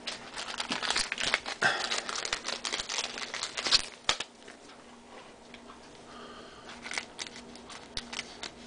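Thin plastic card sleeve crinkling as a trading card is handled and slid into it: a dense run of crinkles and rustles for about four seconds, then quieter handling with a few light clicks.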